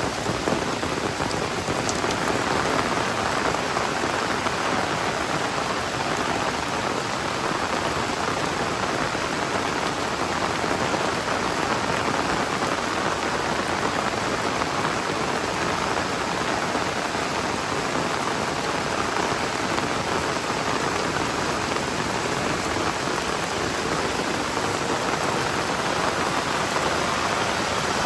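Heavy rain falling steadily: a dense, even hiss of torrential downpour with no breaks or gusts standing out.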